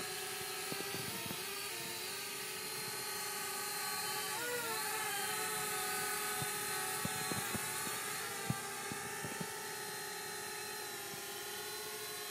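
Flitt foldable selfie quadcopter's small motors and propellers whirring in flight: a steady multi-toned whine that wavers, dips in pitch and recovers about four and a half seconds in as the throttle changes. A few light ticks come in the middle.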